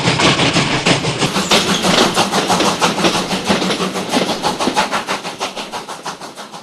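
Steam train chugging in a fast, even rhythm of chuffs, growing fainter over the last couple of seconds.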